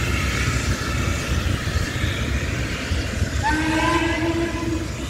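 A train horn sounds for about a second and a half near the end, a chord of several tones that slides up into pitch as it starts, over a steady low rumble.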